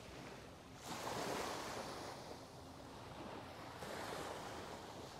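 Sea waves washing onto a sandy beach, the surf swelling up about a second in and again near the end.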